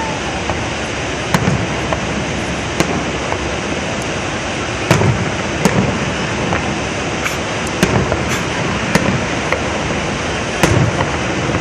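Distant aerial fireworks bursting: about eight sharp bangs and low booms at irregular spacing, the loudest near the end, over a steady rushing background.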